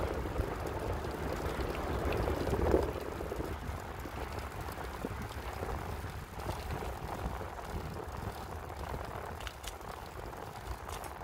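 Bicycle rolling over cracked asphalt: a steady rumble and rush of tyre and wind noise, louder for the first few seconds with a brief swell about three seconds in, then easing off, with a few faint ticks near the end.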